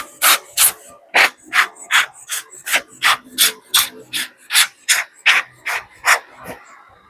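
Short rasping strokes repeated in a steady rhythm, about three a second, fading out near the end.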